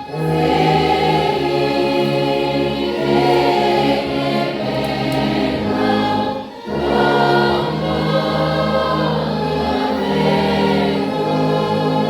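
A hymn sung by a choir in slow, long-held chords over a deep sustained bass line, the bass played on a tuba. There is a brief break between two phrases about halfway through.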